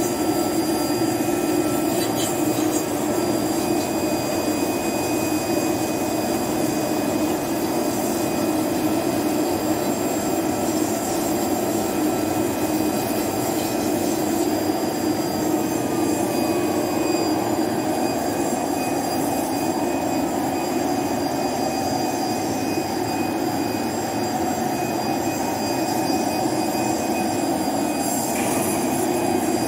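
CNC router spindle milling lettering into a PVC sheet. A steady, even machine noise with thin high whining tones running over it.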